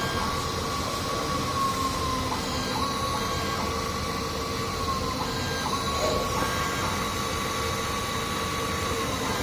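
Automatic soldering machine running: a steady mechanical hum with a high, steady tone that drops out and comes back a few times as the machine moves.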